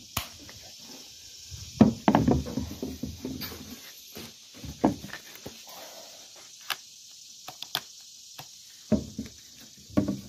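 Irregular knocks, clicks and rubbing from the camera and microphone being handled, heaviest about two seconds in, over a steady high hiss.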